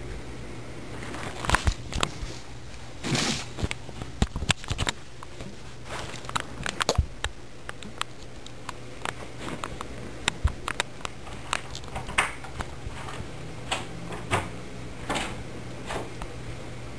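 A person moving stealthily in a dark room: scattered soft taps, clicks and rustles of steps and clothing over a steady low hum.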